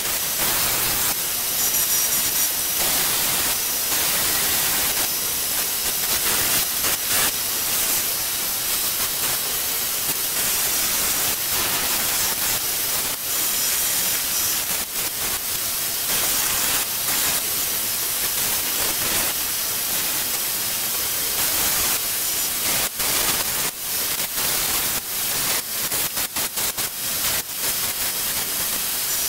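Edge belt sander running with a knife's wooden handle pressed against the belt, a steady hissing grind of abrasive on wood. Near the end the sound turns uneven, with short breaks and clicks as the piece is shifted on the belt.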